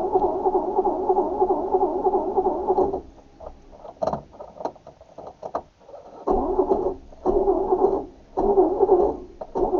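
Starter motor cranking an old car's engine, which turns over but does not catch. The cranking stops about three seconds in, a few clicks follow, then it cranks again in three short bursts near the end.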